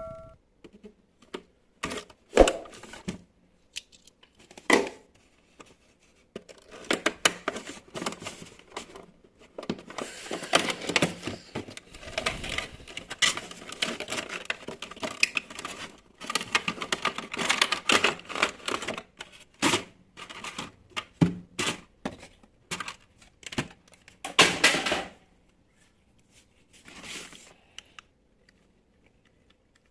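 Packaging being torn and handled while a box is opened: tearing, crinkling and scattered sharp clicks and knocks. The sound is densest in the middle and dies away after about twenty-five seconds.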